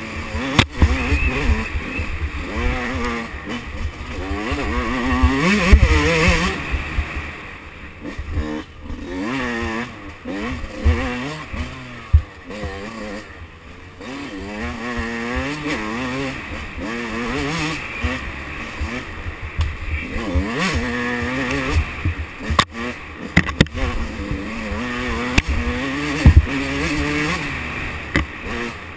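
2005 Yamaha YZ125's 125cc single-cylinder two-stroke engine, ridden hard along a tight trail, its revs rising and falling over and over as the throttle is worked. Sharp knocks sound now and then over a low rumble.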